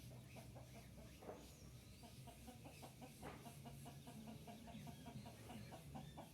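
Faint clucking of chickens, a quick series of short clucks, with a few high bird chirps.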